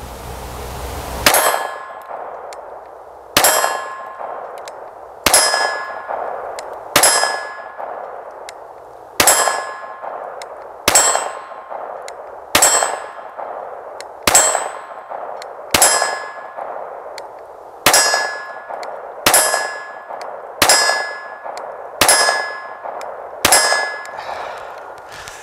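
Taurus TX22 .22 LR pistol fired unsuppressed: fourteen slow, evenly spaced shots about one and a half to two seconds apart. Each shot is followed at once by the bright, ringing clang of the bullet striking a steel target, which fades over about a second.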